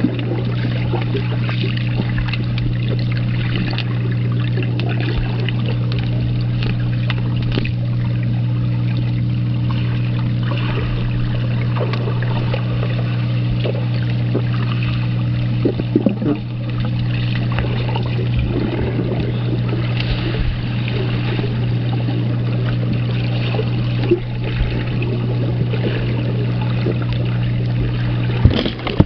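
Steady low motor hum, like pool pump machinery, under water trickling and splashing, with a few brief louder splashes.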